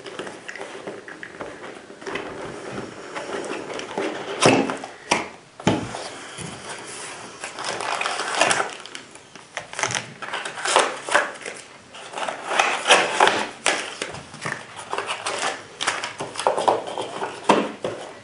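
Cardboard scope box being opened and handled, with plastic wrap and papers rustling and crinkling: irregular scraping and crackling broken by sharp knocks, busier in the second half.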